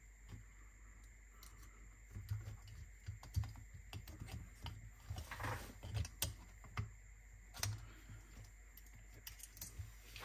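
Irregular light clicks and taps of small parts and tools being handled on a cassette deck's transport mechanism, starting about two seconds in.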